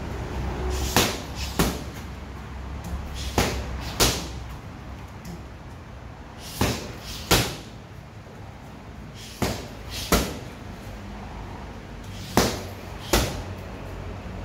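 Boxing gloves smacking a trainer's focus mitts and padded body protector during pad work. There are ten sharp strikes in quick pairs, each pair a few seconds apart.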